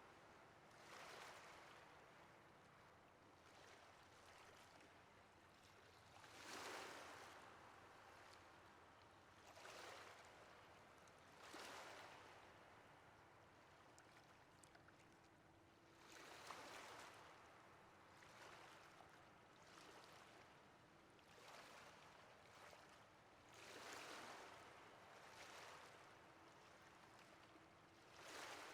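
Faint ocean waves breaking and washing ashore, swelling and falling away every few seconds, with stronger surges now and then.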